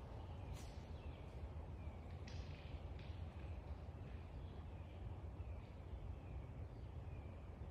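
A bird calling over and over in short, falling notes, about one every half second or so, over a low steady rumble. Two sharp clicks come about half a second and two seconds in.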